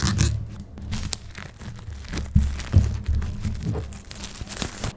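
Clear plastic shrink-wrap on a phone box being slit with a blade and peeled off, crinkling and tearing in irregular crackles, with low bumps from the box being handled.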